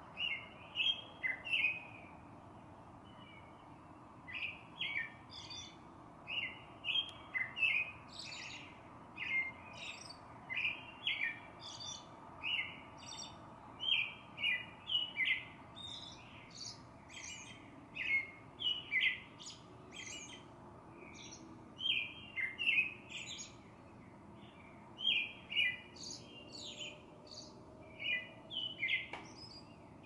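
Songbird singing: short, quick phrases of high chirping notes repeated every second or two, over a faint steady background hiss.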